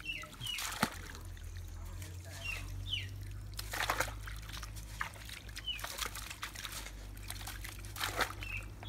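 Water trickling and sloshing in wet mud as hands work around a tube-well pipe, with a few louder splashes about four and eight seconds in. Short falling bird chirps come every few seconds over a steady low hum.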